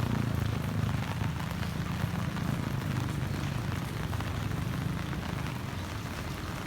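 Heavy rain falling: a steady hiss and patter of drops, with a low rumble underneath.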